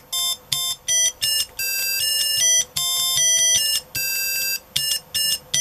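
Yamaha YMZ294 chiptune sound chip playing through a small board speaker: a quick run of short, high, buzzy square-wave notes, about a dozen in all, each at a different pitch, with short gaps between them.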